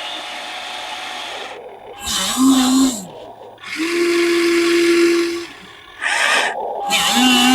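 Electric motors of a Huina 1580 RC excavator whining in short spells as it works: a brief whine about two seconds in, a longer steady one a little past the middle, and another near the end, each rising and falling in pitch as the motor starts and stops, over a hiss.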